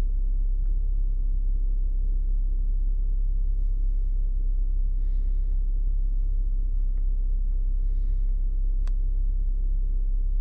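Steady low rumble, even in level throughout, with faint soft rustles now and then and a single sharp click about nine seconds in.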